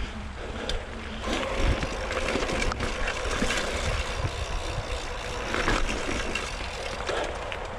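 Mountain bike riding singletrack: knobby tyres rolling over dirt and roots, the bike rattling with a few sharp knocks, over a steady rumble of highway traffic.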